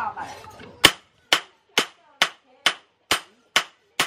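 Hand hammer striking a chainsaw-bar steel knife blade on a steel anvil: eight steady, evenly spaced blows, about two a second, starting about a second in, each with a short metallic ring.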